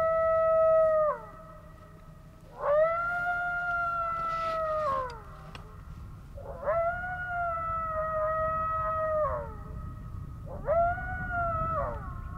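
Coyote howls played loud through a FoxPro X2S electronic predator caller: four drawn-out howls, each rising into a long steady note and dropping off at the end, with short pauses between them.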